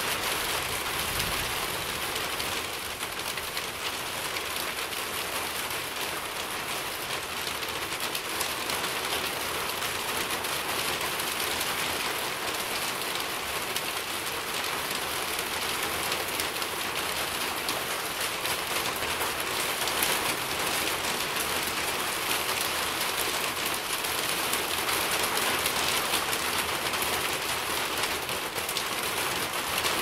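Steady rain falling: an even, dense hiss of many drops.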